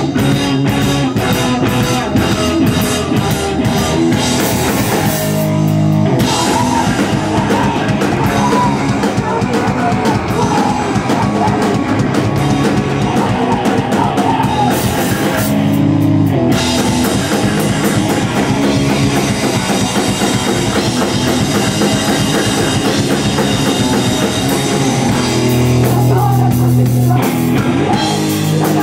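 Emocrust band playing live: distorted guitar, bass and a drum kit, with vocals. Twice the drums and cymbals break off for about a second, leaving held chords ringing.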